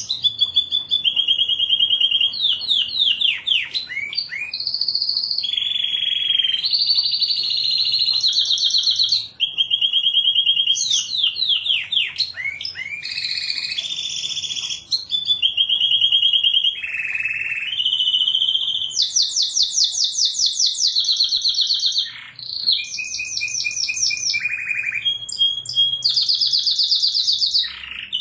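Domestic canary singing a long unbroken song: rapid trills of repeated notes, each run lasting a second or two before switching to a higher or lower note.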